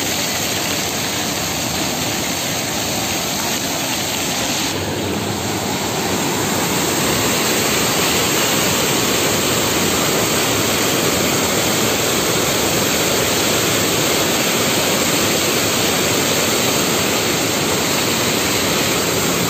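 Fountain jets rushing and splashing steadily, close up. The sound grows a little louder about five seconds in.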